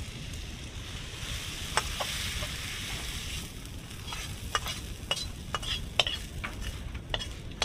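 Fried onion and tomato masala sizzling in a metal karahi as a metal spatula stirs it. From about four seconds in comes a string of sharp scrapes and clicks as the spatula scrapes the masala out of the tilted pan.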